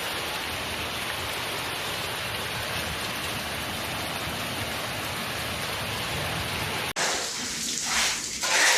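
Steady, even hiss of a heavy hailstorm downpour pelting onto surfaces. About seven seconds in it cuts off abruptly, and uneven, louder surges of storm noise follow.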